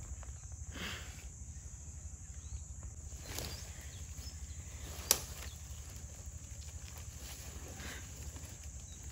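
Komodo dragons tearing at a goat carcass: scattered rustles and crunches of dry leaves and twigs as the carcass is tugged, with one sharp snap about five seconds in, over a steady low rumble.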